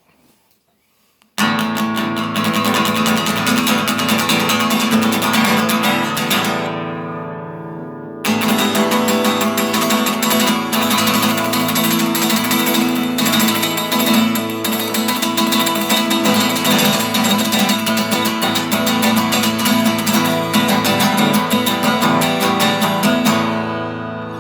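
Guitar strummed rapidly and continuously. The first passage rings out about six seconds in, and playing starts again sharply a couple of seconds later, then rings out again near the end.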